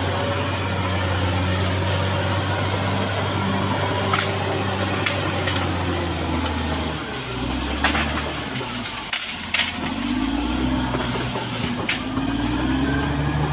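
CAT D6R XL bulldozer's diesel engine running steadily, its note dropping and wavering from about halfway through as the load changes. A few sharp clanks or cracks are heard along the way.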